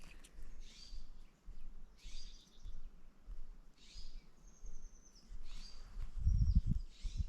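Footsteps at a steady walking pace, with a short high bird trill about four and a half seconds in and another soon after. A low rumble near the end.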